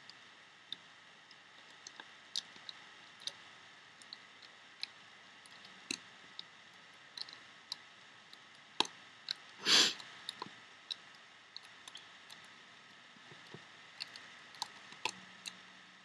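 Small irregular clicks and ticks of a plastic loom hook catching and pulling rubber bands over the plastic pegs of a Rainbow Loom, a few a second, with one louder, brief noise about ten seconds in.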